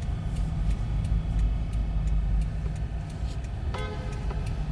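Car's indicator relay ticking evenly, about three clicks a second, over the low, steady rumble of the idling car heard from inside the cabin. A short pitched tone sounds about a second before the end.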